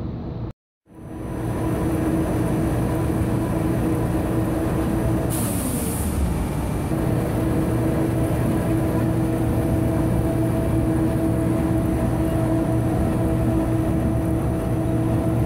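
Rotary tow cutter of a polypropylene staple fiber line running: a steady machine hum with a constant pitched drone. The sound drops out briefly just under a second in, and a short hiss comes about five and a half seconds in.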